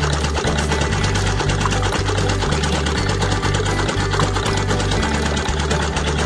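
Small motor of a miniature model pump set running steadily, belt-driving a toy water pump, giving a continuous fast whirring clatter.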